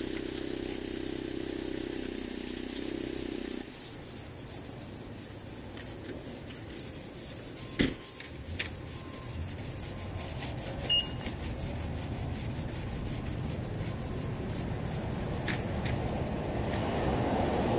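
Hand sanding of a car's painted body panel: repeated rubbing strokes of an abrasive pad on the BMW's door and quarter panel. A steady low hum underneath cuts off about four seconds in, and a single sharp knock comes about eight seconds in.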